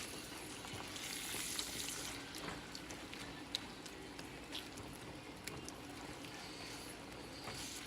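Ground beef and diced onions sizzling in a pot: a steady hiss with scattered small pops.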